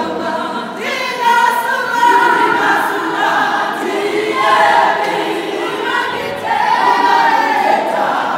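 Women's choir singing a cappella.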